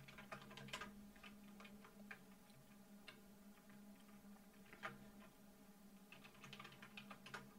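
Faint computer keyboard keystrokes, scattered and irregular, clustered near the start and again shortly before the end, over a faint steady low hum.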